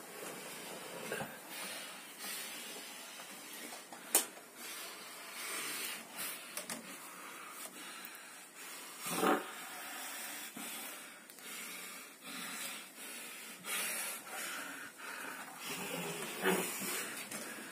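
A frightened, cornered cat hissing in several short bursts. A sharp knock comes about four seconds in.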